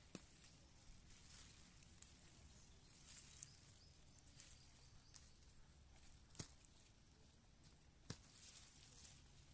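Faint rustling of chili plant leaves being picked by hand, with four sharp clicks scattered through.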